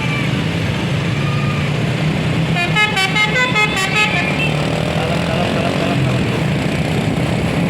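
Basuri telolet musical air horn on a bus playing a quick run of short notes that step up and down in pitch, lasting about a second and a half near the middle. A bus engine and road traffic run underneath.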